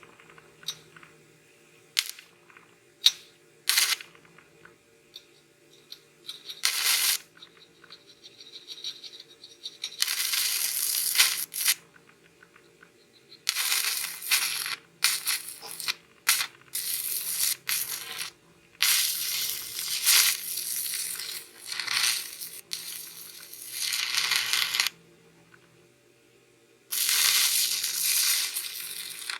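Stick-welding arc from a YesWelder 205A inverter welder, crackling in runs. There are a few brief strikes in the first seconds as the rod is struck to start the arc, then longer stretches of crackle lasting several seconds each, broken by short pauses.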